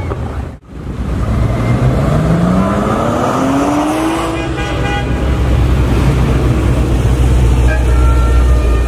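Classic car engine accelerating, its pitch rising steadily over a few seconds, then a low engine rumble with short horn toots.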